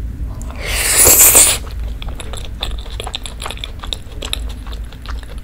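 Close-miked eating of creamy rose-sauce shrimp spaghetti: a loud hissing slurp of noodles about a second in, then chewing with many small wet mouth clicks.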